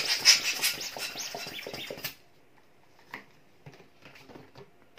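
Hand pump inflating a long green latex modeling balloon: quick hissing strokes of air for about two seconds, then faint squeaks and rubbing of the latex as the balloon is handled.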